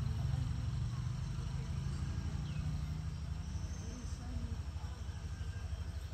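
Rural morning ambience: a steady low rumble, with a few faint bird chirps above it.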